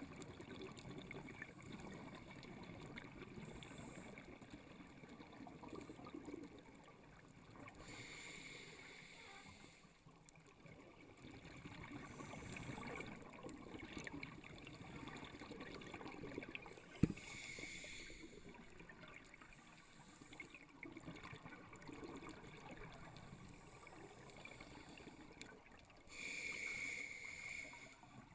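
Underwater sound of a scuba diver breathing through a regulator: three breaths about nine seconds apart, each a short hiss, over a steady bubbling rumble. A single sharp click comes about seventeen seconds in.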